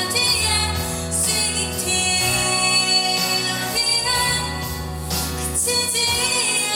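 Women singing a slow ballad live over musical accompaniment, with long held notes.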